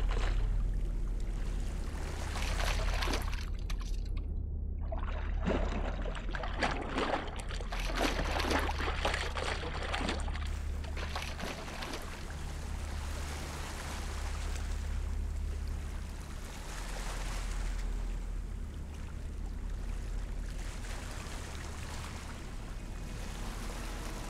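Shallow water splashing and sloshing, dense in the first half and sparser after, as a hooked sea trout thrashes at the surface near a wading angler. A steady low rumble runs underneath.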